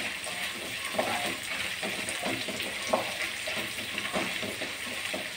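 Dried turkey berries (sundakkai), garlic and small onions sizzling in hot oil in a nonstick pan while a wooden spatula stirs them in repeated scraping strokes.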